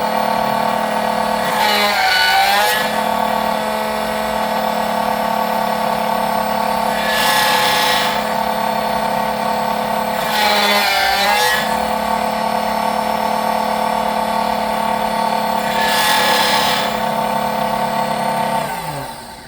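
SEC-9 key cutting machine's cutter motor running steadily while cutting a Tibbe key, with four louder grinding passes a few seconds apart as the cutter works the blade. The motor stops just before the end.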